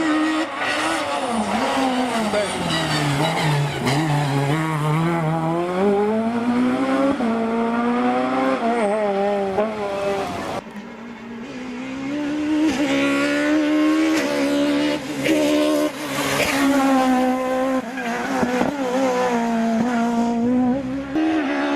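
Peugeot 306 Maxi rally car's naturally aspirated four-cylinder engine driven hard. The pitch falls low about two seconds in and climbs back up. Near the middle it briefly lifts off, then rises and falls again and again through the gears.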